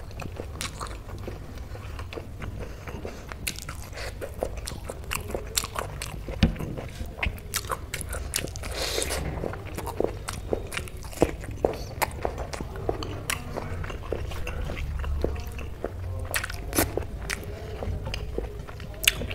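Close-miked chewing of soft boiled pumpkin, with many sharp wet mouth clicks and smacks over a low steady hum.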